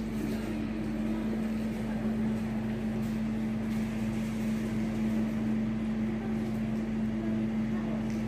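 Steady mechanical hum at one constant pitch, with a weaker lower hum and a faint even rush beneath it.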